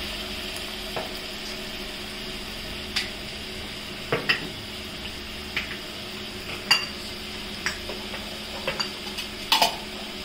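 Masala frying in oil in a wide steel pan, with a steady sizzle, while a spatula scrapes and knocks against the pan now and then as it is stirred.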